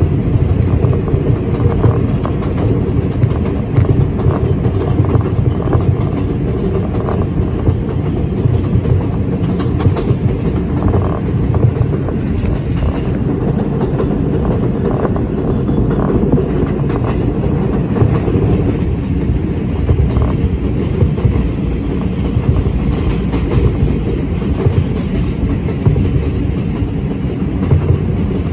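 R142 subway car running at speed on elevated track, heard from inside the car: a steady rumble with the wheels clicking irregularly over the rails.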